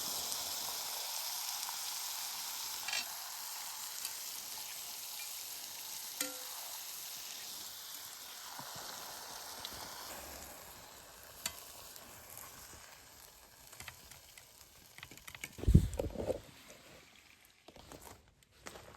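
New York strip steaks sizzling in a pan, the sizzle slowly fading away over about ten seconds. A few knocks come about three-quarters of the way through.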